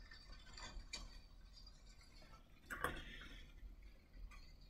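Near silence: quiet room tone with a few faint, light taps and clicks, the loudest a pair about three seconds in.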